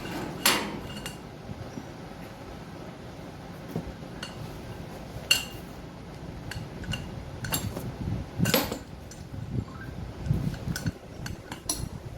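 Metal tools and parts clinking and knocking while a semi-hermetic compressor is taken apart: scattered sharp clinks with a few louder knocks, the loudest about half a second in, around five seconds in and midway through.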